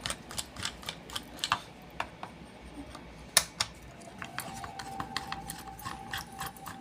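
Irregular small clicks and taps of a screwdriver turning out the screws of a plastic hair-trimmer housing, with handling of the trimmer. A faint steady tone comes in about two-thirds of the way through.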